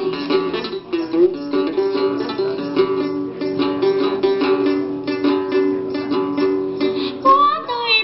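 Instrumental interlude of a Tày then folk song: a đàn tính, the long-necked plucked lute, picks a quick run of repeated notes over a steady low accompaniment.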